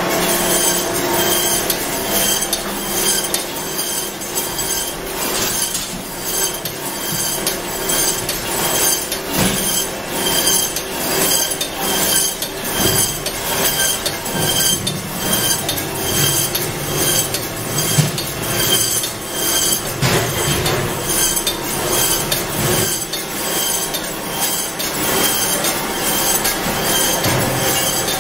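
Poultry processing line machinery running, with a steady rhythmic metallic clatter of about two clinks a second from the overhead shackle conveyor and cutting machines.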